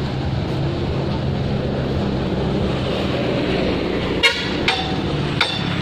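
Steady drone of an idling vehicle engine and road traffic. About four seconds in, three sharp, ringing hammer blows.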